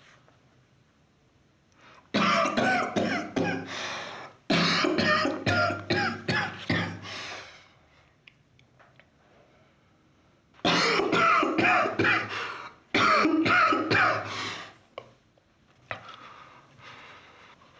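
A man coughing hard in four fits, each a quick run of coughs, as he chokes on cigarette smoke.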